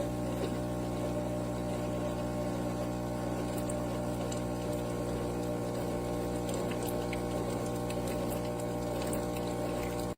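Cuisinart SS-10P1 single-serve coffee maker brewing: its water pump running with a steady, even hum.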